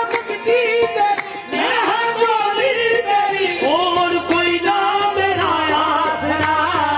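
Qawwali music: a singing voice over steady sustained tones, with tabla accompaniment.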